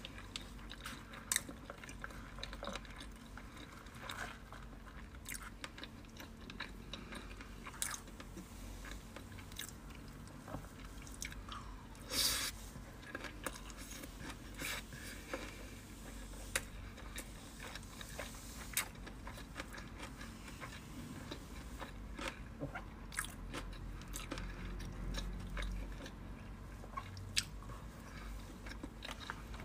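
Close-miked eating sounds of sushi being chewed: wet chewing with scattered mouth clicks and smacks, one louder about twelve seconds in.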